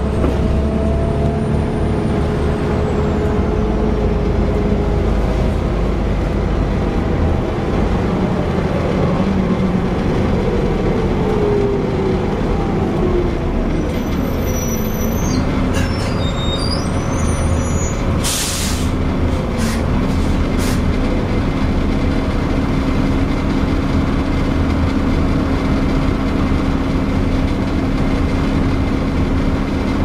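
Diesel bus engine and automatic gearbox heard from inside the passenger saloon, running steadily; the pitch falls as the bus slows about halfway through, then steps up again as it pulls away. A short hiss of air comes a little after the middle.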